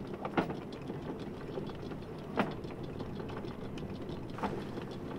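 Sailboat's inboard engine running steadily while motoring, a low even drone, with three sharp clicks about two seconds apart.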